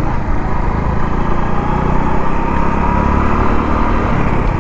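Hero Splendor motorcycle's small single-cylinder four-stroke engine running steadily while the bike is ridden, with a low rumble of road and wind noise.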